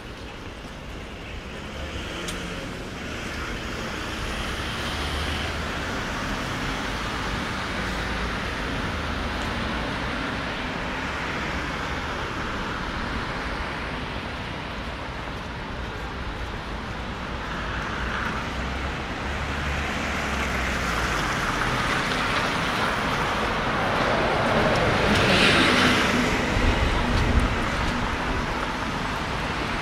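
Road traffic on a city street: a steady wash of passing cars that grows louder, with one vehicle passing close near the end and a low rumble as it goes by.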